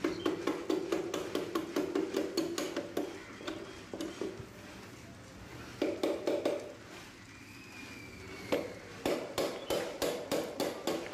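Plastic-headed mallet tapping the gear shafts of a Maruti Suzuki Alto 800 gearbox down into the aluminium housing: quick light taps, about four or five a second, in three runs with short pauses. Each run drives the shaft bearings a little further into their seats.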